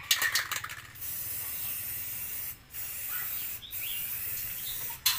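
Aerosol spray-paint can hissing in bursts, with brief breaks as the nozzle is let go and pressed again. A quick run of sharp clicks comes in the first second, and one more near the end.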